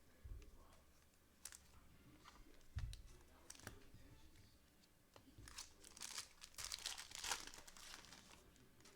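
Sports card pack wrapper being torn open and crinkled, with a dense run of crinkling a little past the middle. A few soft knocks and clicks from handling the cards come before it.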